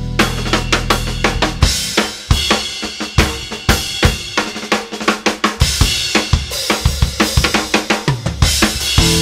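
Pearl drum kit played hard in dense, rapid fills of snare, toms, bass drum and cymbal strikes. A backing track's sustained low bass notes stop about a second and a half in, leaving the drums alone, and come back near the end.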